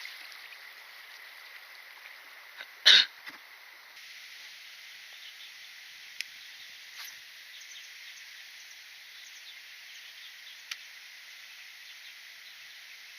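Steady chorus of insects, such as crickets, with one loud brief knock about three seconds in and a couple of faint ticks later.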